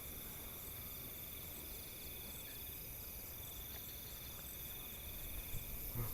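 A chorus of night insects trilling steadily in several high, pulsing trills. The main trill breaks off about two and a half seconds in and resumes nearly a second later.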